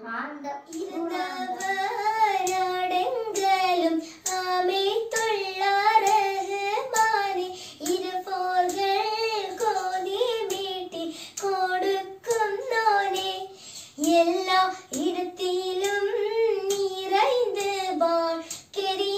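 A young girl singing solo and unaccompanied, holding long wavering, ornamented notes in phrases broken by short breaths.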